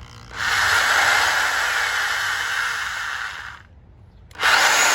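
Harbor Freight electric jackhammer running as it drills into the ground. It runs steadily for about three seconds, stops briefly, then starts again near the end.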